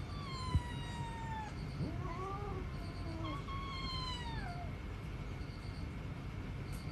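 A cat meowing: three drawn-out meows over about five seconds, the first and last falling in pitch, with a short sharp tap about half a second in.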